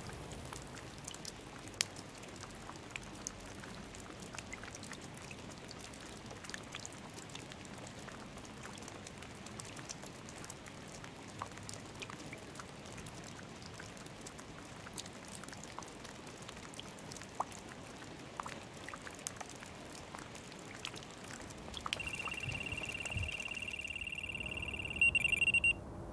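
Light rain pattering, with scattered drops ticking, at a low level. About 22 seconds in, a carp-fishing bite alarm sounds a steady high electronic tone for about four seconds, signalling a take.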